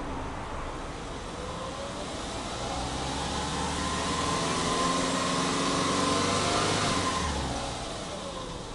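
Subaru Impreza hatchback 2.0i-S's 2.0-litre flat-four (boxer) engine revved with no load, heard at the exhaust: it climbs slowly from idle, is held up for a couple of seconds, then drops back toward idle near the end.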